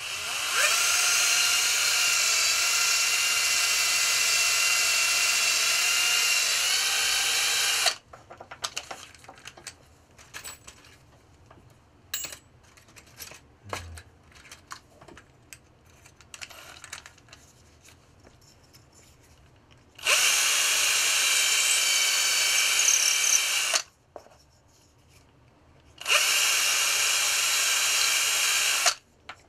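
Cordless drill running in three runs, a long one of about eight seconds and two shorter ones near the end, spinning a length of stainless steel wire to twist it into a loop. Light clicks and handling noises come in the pauses between runs.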